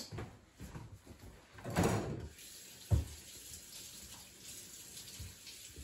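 Kitchen faucet running steadily into the sink, a continuous even hiss. A clunk comes about two seconds in and a dull thump about a second later.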